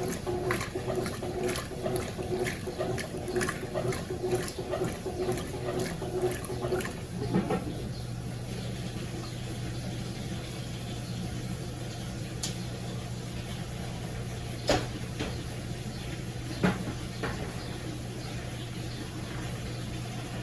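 Consul CWS12 top-load washing machine agitating a load of jeans in water with a regular rhythmic sloshing, which stops about seven seconds in. A steady low hum of the drain pump with water running out follows, with a few single clicks.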